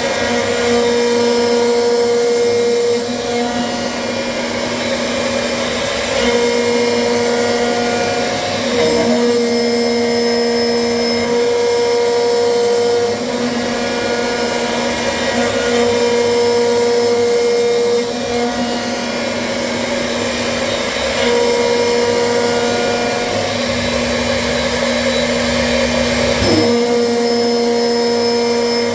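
CNC machine running: a steady whirr with a humming tone that cuts out and comes back every few seconds.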